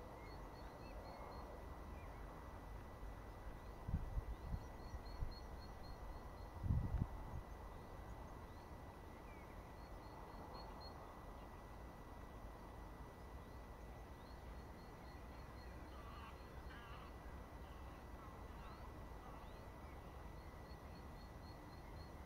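Faint meadow ambience with a small songbird repeatedly singing a short run of quick high notes. Two brief low thumps on the microphone about four and seven seconds in are the loudest sounds.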